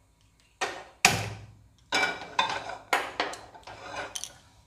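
Nonstick frying pan knocking and clattering against a gas stove's metal pan support as it is set down and shifted into place: a series of sharp metallic knocks, the loudest about a second in.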